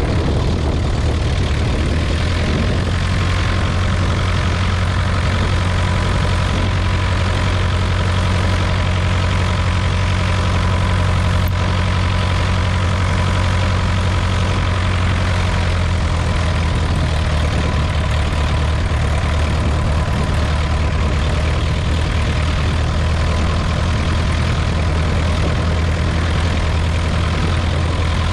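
Cessna 140A's four-cylinder engine and propeller running steadily at low taxi power while the plane taxis.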